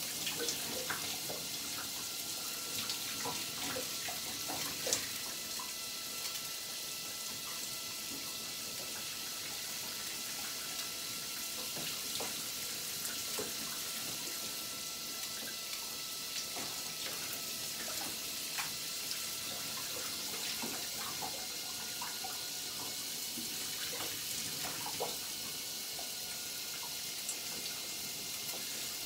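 Water spraying steadily from an LED light-up shower head and splashing in a tiled shower stall, with scattered small splashes and drips.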